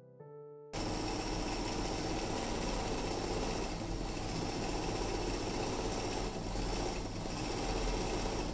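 Janome 393 electric sewing machine's motor running steadily at speed to wind thread onto a bobbin on its bobbin winder, a continuous whirring hum that starts suddenly about a second in. The owner puts the small extra noise down to the machine being fitted on a plastic base.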